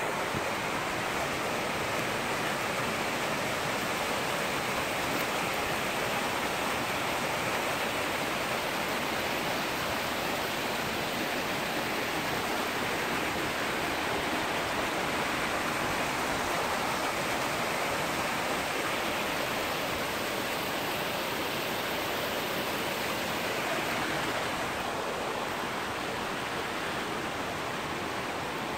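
Steady rushing of a rocky stream's water, a little softer near the end.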